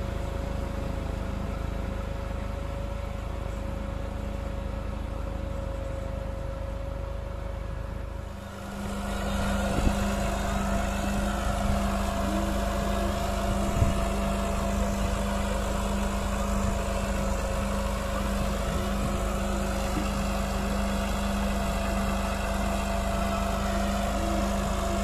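Tractor engine running steadily. About eight seconds in, the sound briefly dips and then comes back louder, with a stronger low hum.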